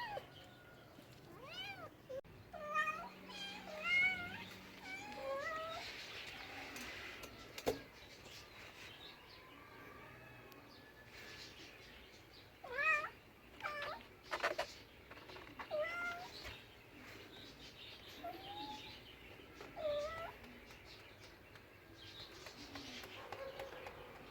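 Cat meowing in a string of short calls that rise and fall in pitch, in several bursts, with a couple of sharp clicks between them.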